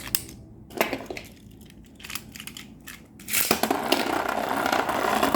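A few sharp plastic clicks, then about three seconds in the Bloody Longinus and Revive Phoenix Beyblade Burst tops start spinning in the stadium with a loud, continuous clatter and scraping as they grind and hit each other.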